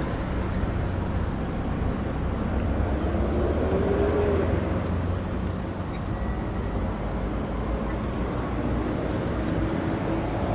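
Steady low engine rumble with a constant background roar, like running vehicle or machinery engines.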